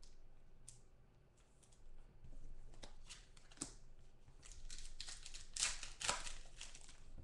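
Foil wrapper of a football trading-card pack crinkling as it is handled and torn open, with a few sharp crackles at first and the loudest crinkling about five to six seconds in.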